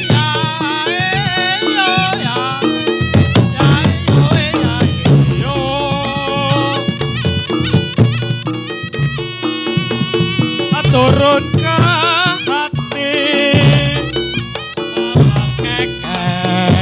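Reog Ponorogo ensemble music for jathilan dance: a slompret (Javanese shawm) plays a wavering, ornamented melody over kendang drums and gong-chime percussion.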